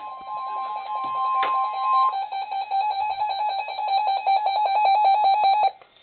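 Weather radio alert alarm: a fast, evenly pulsing high-pitched beeping, with a steady alarm tone under it for the first two seconds. The beeping cuts off suddenly near the end. It announces an incoming weather warning broadcast.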